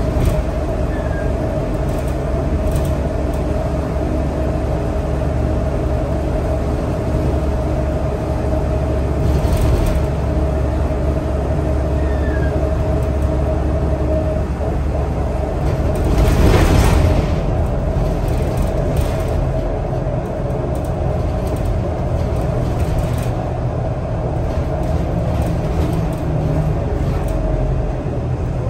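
Interior of a Scania L94UB bus on the move: steady engine and driveline rumble with a steady whine over it. A brief louder rush of noise comes a little past halfway.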